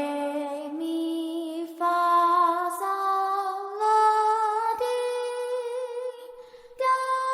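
Soft background music: a slow melody of held notes climbing step by step in pitch, with no bass or beat, and a brief pause near the end.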